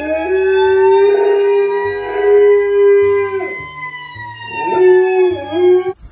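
Dog howling: a long, drawn-out howl held at a nearly level pitch, then a second howl that wavers and breaks off near the end.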